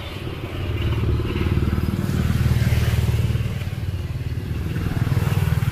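A motor vehicle engine running loudly, swelling about two seconds in and again near the end.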